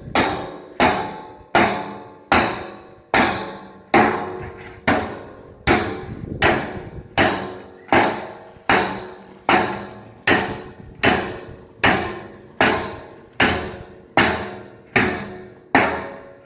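Steady metal-on-metal blows, a little under one a second, on a machete held upright against a steel drum, cutting the drum's lid away along the rim. Each blow leaves the drum ringing briefly.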